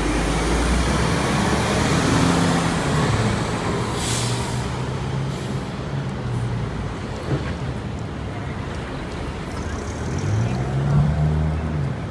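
Heavy street traffic, with truck and bus engines running nearby. A short, loud hiss of air comes about four seconds in, and an engine revs up near the end.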